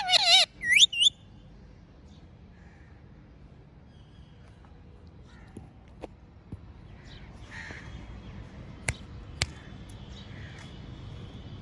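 A parrot gives a quick run of loud, shrill squawks with a wavering pitch in the first second. Softer, fainter calls follow later, and there are two sharp clicks about nine seconds in.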